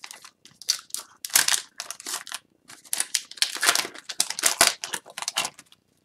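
Wrapper of an Upper Deck Series 1 hockey card pack crinkling and tearing as it is opened by hand, a run of irregular rustles that stops about half a second before the end.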